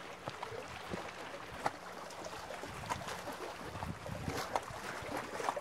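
Small waves lapping against a rocky lakeshore: a steady wash with many scattered little splashes.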